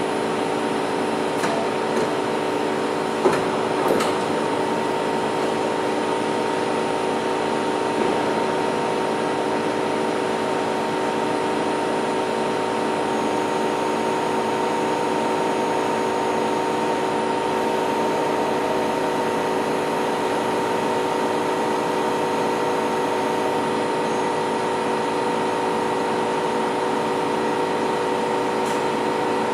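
Novar CNC bed milling machine running steadily under power: an even mechanical hum with several steady tones. A few sharp clicks come in the first four seconds, the loudest about three seconds in.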